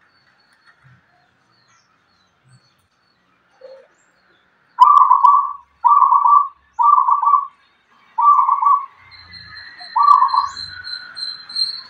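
Caged zebra dove (perkutut) cooing: a faint low note, then five loud, rolling coos about a second apart. A thin high whistle starts near the end.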